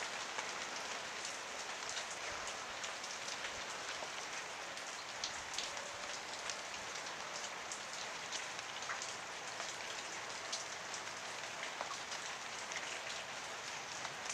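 Steady rain falling, with a constant hiss and many individual drops ticking close by.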